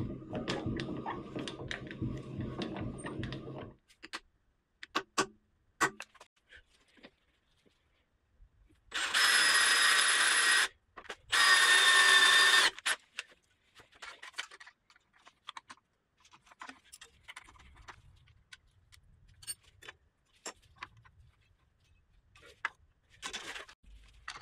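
A milling-machine table handwheel cranked by hand, turning the leadscrew with a steady rumble for the first few seconds. Then a cordless drill drills into the mill's steel column in two runs of about a second and a half each; these are the loudest sounds. Scattered clicks and handling knocks come between and after.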